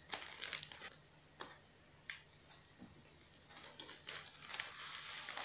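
Scissors snipping through a taped plastic mailer with a few separate sharp clicks, then the plastic packaging crinkling and rustling steadily as it is pulled open, starting about three and a half seconds in.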